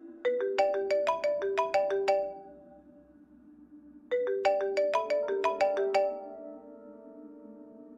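Mobile phone ringtone: a quick melody of short, bright notes, played twice about two seconds apart, over a steady low music drone.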